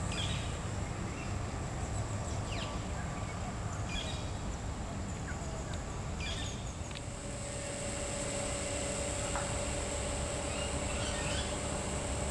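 Outdoor ambience: a few short bird chirps over a steady high-pitched drone and a low rumble. The drone gets stronger about halfway through.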